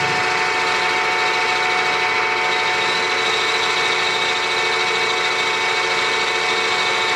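A 3-in-1 lathe-mill's spindle runs steadily with a milling cutter cutting into a cast iron plate as it is ramped down. About two and a half seconds in, a higher ringing tone joins the steady machine whine.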